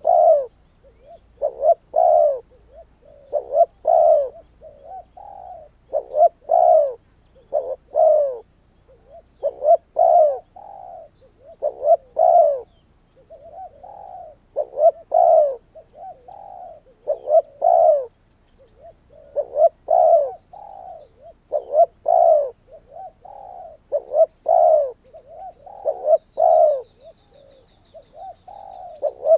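Spotted dove cooing its repeated phrase over and over, a loud coo roughly every two seconds with softer notes between.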